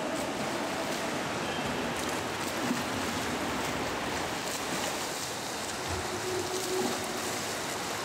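Steady splashing and churning water from several swimmers doing backstroke arm strokes and kicks in a pool, heard as an even wash of noise.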